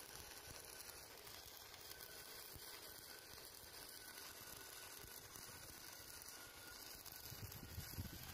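Stick-welding arc on steel crackling and sizzling steadily as the electrode burns, with a few low bumps near the end.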